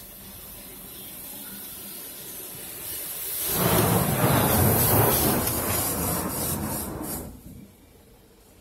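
RACO automatic car wash working over the car, heard from inside the cabin: a rush of water and washing against the roof and glass. It builds, is loudest for about four seconds in the middle, and falls away fairly suddenly near the end.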